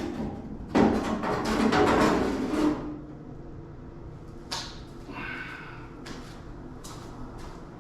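Metal parts of an old welder scraping and rattling as they are worked loose for about two seconds, then a few light knocks and clinks.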